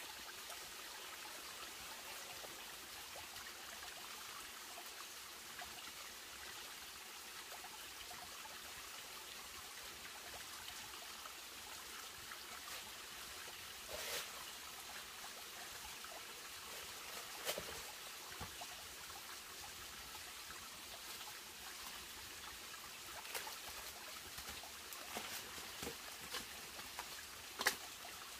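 Small stream trickling steadily over rocks, with scattered light clicks and knocks. The sharpest knock comes near the end.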